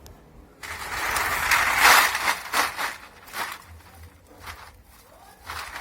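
Loose aluminium cans clattering and rustling in a sack, a loud rush of noise from about half a second in, then a few separate knocks.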